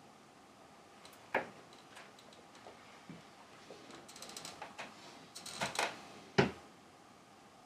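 Latex rubber trousers squeaking and rustling as the legs move and rub against each other and the hand, with a sharp click about a second and a half in and a sharp knock near the end, the loudest sound.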